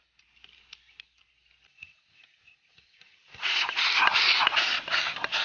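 Light ticks and scrapes of a bowl and utensils as chili sauce is tipped onto rice. About three seconds in, loud fast eating takes over: chopsticks shovel rice from the bowl's rim into the mouth, with rapid slurping and chewing.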